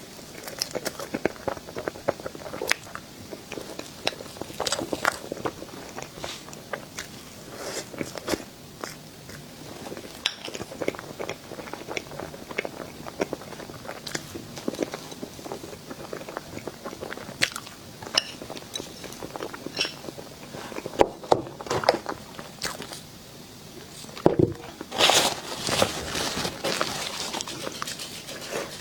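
A person biting and chewing dessert close to the microphone: irregular crisp crunches and mouth clicks, with a louder run of crunching near the end.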